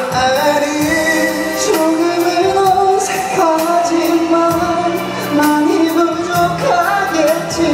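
A pop song sung into a microphone over a backing track, with the melody gliding and held in long notes.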